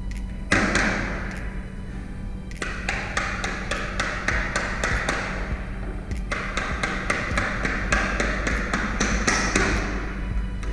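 Small hammer tapping nails to fix PVC wiring casing to a wall: a long series of light, sharp taps, a few a second, with short pauses between runs.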